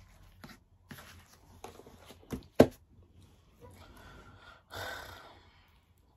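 Small clicks and handling sounds at a dining table, with a sharp knock about two and a half seconds in, then a breathy sigh near the end.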